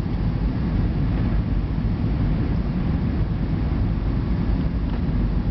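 Airbus A320 cabin noise on approach, heard from a window seat over the wing: a steady, low rumble of the jet engines and the air rushing past the fuselage.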